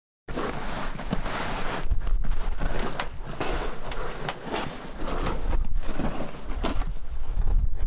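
Roll of artificial grass being unrolled across wooden porch boards: rustling and scraping with irregular knocks, over a low rumble of wind on the microphone.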